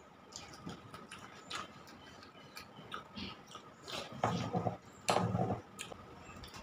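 Close-up eating sounds: irregular wet clicks and smacks of a mouth chewing rice and dal, with fingers squishing rice and lentil dal on a steel plate; two louder, denser stretches come about four and five seconds in.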